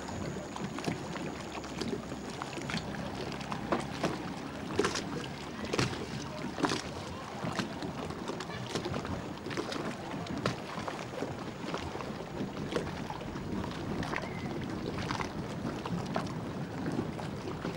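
Small boat under way across a lake: a steady low rumble, with water splashing and slapping against the hull in frequent irregular knocks.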